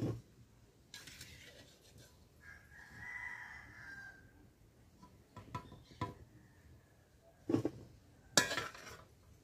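A metal slotted spoon clinks and scrapes against an iron kadai of frying oil several times; the loudest scrapes come near the end. A rooster crows once, about three seconds in.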